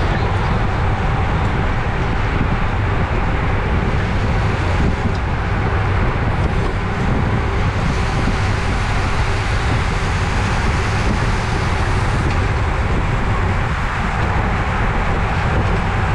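Steady rush of wind over a bicycle-mounted camera's microphone at racing speed, with tyre and road rumble underneath.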